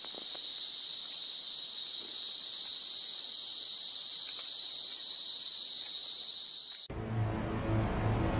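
A steady, high-pitched insect chorus that trills without a break. About seven seconds in it cuts off suddenly and dramatic music begins.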